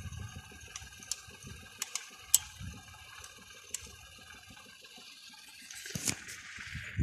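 Scattered sharp clicks and soft rustling from a handheld camera held close in grass, over faint steady high tones. Just before the end, a louder rush of handling noise as the camera swings away.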